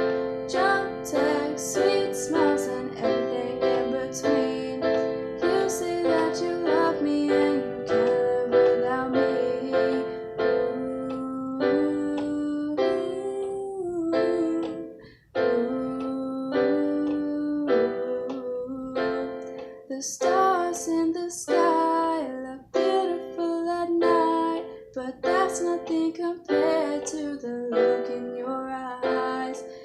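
Keyboard playing chords in a steady rhythm as the song's accompaniment, with brief pauses about halfway through and near the end.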